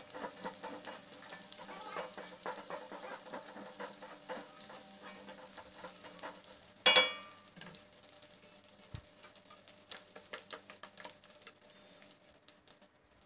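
Ground spice paste with lemongrass and lime and bay leaves frying in oil in a wok, with a quiet crackling sizzle as a spatula stirs it now and then; it is being cooked until done so it loses its raw smell. One louder sharp clink, the spatula against the pan, about halfway through.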